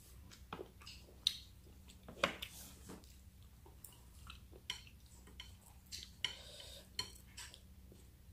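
Chopsticks clicking and tapping against a plate and a small sauce dish: a scatter of short, sharp clicks at irregular intervals.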